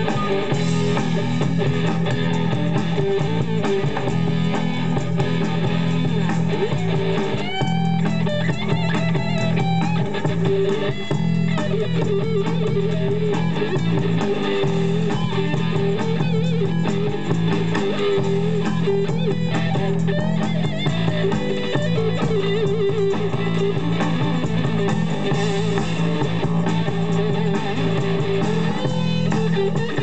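Live band playing an instrumental stretch between sung verses: guitar-led, over a steady bass line, continuous throughout.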